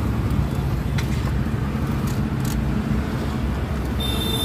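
Steady low vehicle rumble, with a few light clicks as the plastic AC control panel is fitted into the stereo's dash frame. A brief thin high tone comes in near the end.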